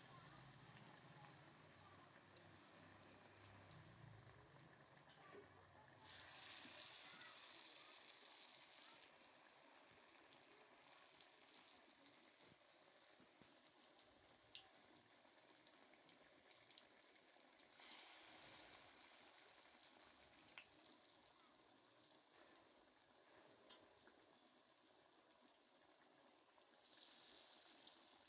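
Faint, steady sizzle of batter-coated potato patties (aloo chaap) deep-frying in hot oil in a kadhai, with scattered small pops; the hiss swells louder three times.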